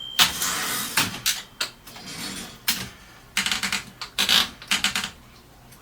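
1950 Mercedes office typewriter's mechanism clicking and clacking: a ring of the bell dies away at the very start, followed by sharp metallic clicks, with two quick runs of clicks in the second half.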